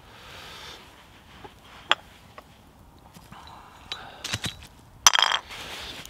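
Lid and clamp bar of a cast-aluminium pressure cooker being taken off and handled: a few sharp metallic clinks and knocks, then a louder, longer clatter about five seconds in.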